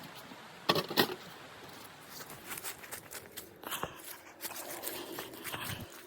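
Two sharp knocks close together, followed by light crinkling, rustling and small clicks of something being handled.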